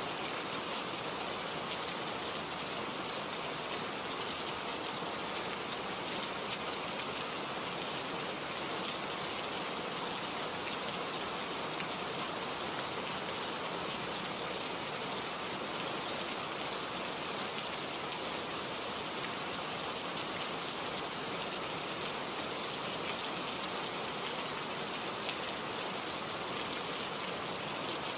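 Heavy rain falling steadily, a dense even hiss with scattered faint drop ticks.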